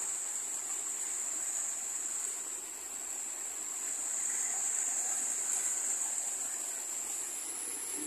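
Small river waterfall rushing steadily over rocks, with a steady high-pitched hiss above the water noise.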